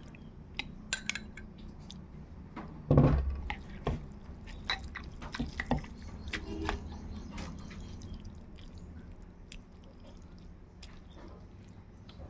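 Utensils clicking and clinking on dishes during a meal: scattered small sharp clicks, with one louder knock about three seconds in, thinning out over the last few seconds.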